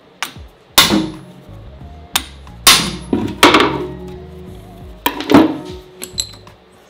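Sharp metal-on-metal knocks from hand tools working on a bare engine block, about half a dozen at uneven intervals, each ringing briefly. Background music plays underneath.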